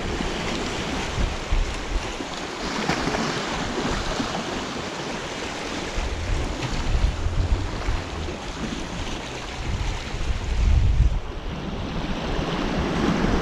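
Sea surging and washing over rocks at the shoreline, with wind buffeting the microphone in gusts, strongest about halfway through and again near the end.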